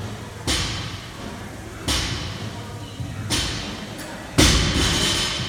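Barbell loaded with rubber bumper plates thudding onto a rubber gym floor four times, about a second and a half apart, with the last thud the loudest: deadlift reps touching down.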